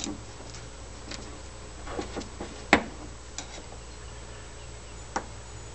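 Short metal clicks and taps of a screwdriver and roller bearings being worked into a bronze sheave, about half a dozen scattered through, the sharpest a little before halfway.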